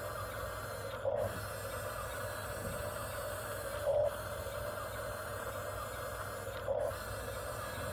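Bulldozer's motor running steadily with a constant mechanical whir, and a brief swell in the sound about every three seconds.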